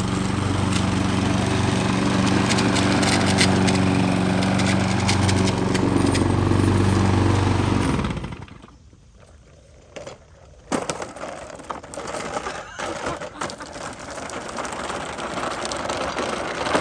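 Small petrol engine of a grass cutter running steadily, then shutting off a little past halfway. After a short lull come a few scattered knocks and clatter.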